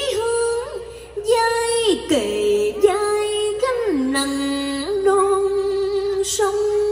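A woman singing a slow cải lương vocal line, drawing out long held notes with sliding pitch and vibrato.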